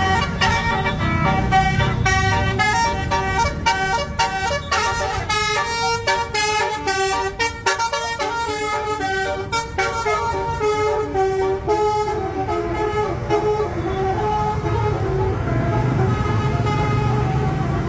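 An Indonesian bus's 'telolet' multi-tone air horn playing a melody, rapid short notes at first, then slower held notes from about twelve seconds in, over the low rumble of the bus's engine.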